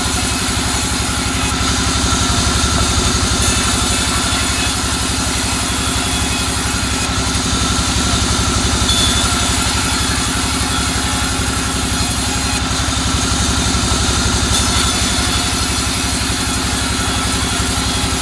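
Bandsaw running steadily while its blade rips a slab of soft albasia wood fed through by hand, a steady low hum under the hiss of the cut, which swells and eases a few times.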